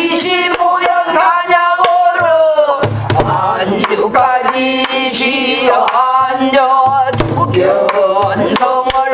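A woman singing pansori in a long, wavering melismatic line, accompanying herself on a buk barrel drum. Low drum booms a few times and sharp stick taps mark the rhythm.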